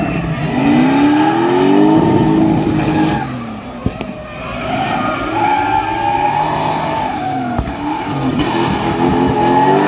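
A drift car spinning its rear tyres through smoky donuts, with tyres screeching and the engine revving up and down over and over as the throttle is worked. It eases off briefly about four seconds in, then revs up again.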